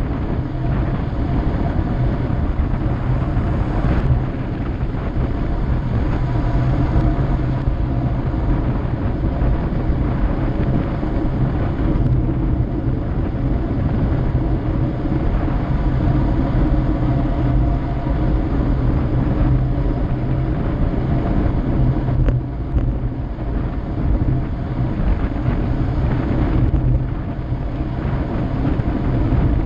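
Steady, loud wind noise on the microphone of a bicycle-mounted camera during a fast downhill ride.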